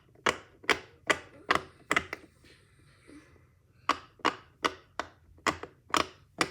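Silicone Pop It fidget bubbles pushed through one after another, a sharp pop roughly every 0.4 seconds, in two runs with a pause of about two seconds between them.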